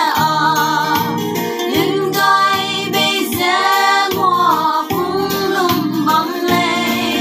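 Five women singing a song together, holding notes with a wavering vibrato.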